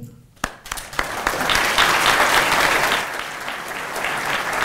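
Audience applauding: a few scattered claps at first, swelling into full applause within about a second and a half, then easing slightly.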